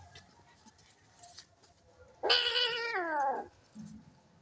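A cat in a fight lets out one loud yowl about two seconds in. The call holds steady for most of a second, then slides down in pitch and stops.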